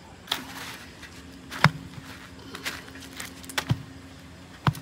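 Roti dough being patted and slapped by hand at a clay tandoor: a few scattered pats and dull thumps, the two heaviest about a second and a half in and just before the end.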